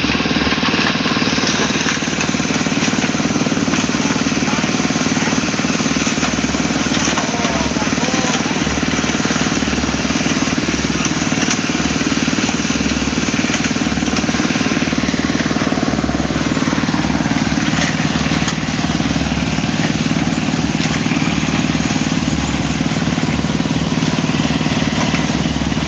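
Small engine of a portable concrete mixer running steadily.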